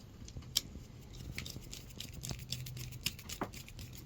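Small, scattered clicks and ticks of wires and a connector block being handled and joined, over a faint steady low hum.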